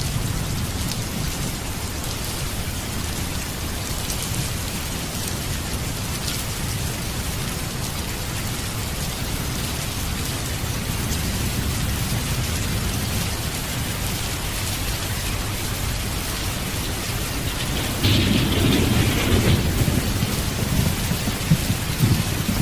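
Steady heavy rain with a deep rolling rumble of thunder underneath; near the end the rain and rumble swell louder.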